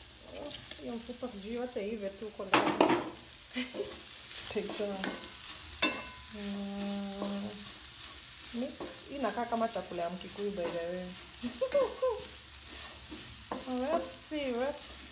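Chicken sizzling in a pan on low heat while it is stirred, with a few knocks of the utensil against the pan. A wavering pitched sound comes and goes over it, with one steady held note about six seconds in.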